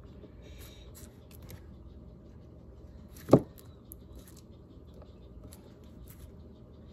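Faint rustles and small clicks of hands handling wires and a radio controller on a desk, with one sharp knock a little over three seconds in.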